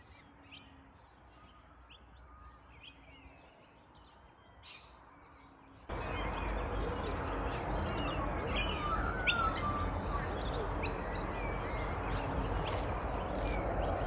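Wild birds chirping, with scattered short high chirps and a few brief whistles over a background hiss. About six seconds in, the background noise jumps abruptly louder and the chirping continues.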